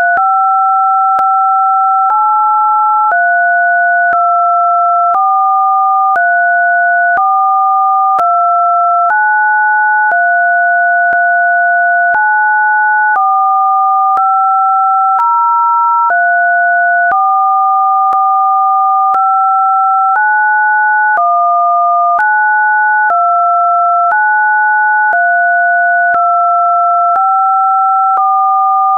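Two pure electronic sine tones sounding together, a lower and a higher one. Both jump to new pitches every one to two seconds, with a click at each change, like a generated test signal.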